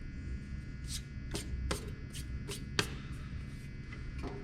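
Sharp clicks and knocks of metal parts being handled while the Dayton 4TJ97 belt and disc sander is reassembled: about six in the first three seconds, then two more near the end. They sit over a steady low hum.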